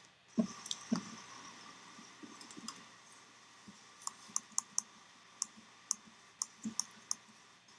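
Faint room tone with a few soft knocks in the first second, then about a dozen light, irregular clicks of typing on a laptop keyboard.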